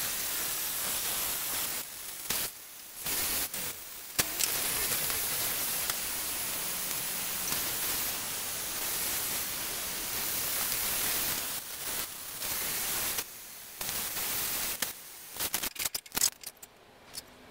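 Electric heat gun blowing: a steady hiss of fan and hot air that cuts out and comes back several times. A few short sharp clicks near the end.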